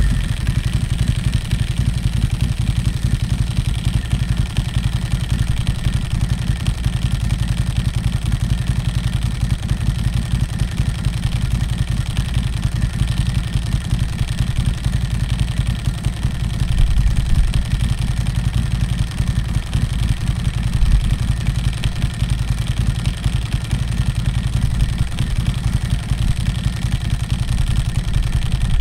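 Ducati Hypermotard 1100 Evo's air-cooled L-twin idling unloaded through a full Zard exhaust with no dB killer, very loud. The revs swell slightly twice, past the halfway point and again a few seconds later.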